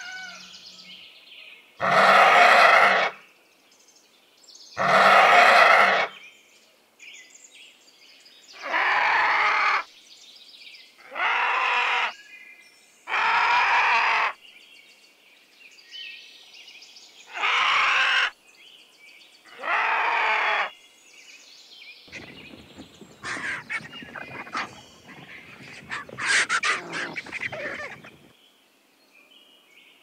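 Vulture giving seven loud, hoarse calls, each about a second long and two to three seconds apart, followed by several seconds of quieter rapid clicking and crackling.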